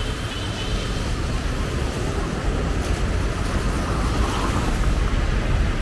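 City street traffic in the rain: a steady low rumble of passing vehicles with an even hiss over it.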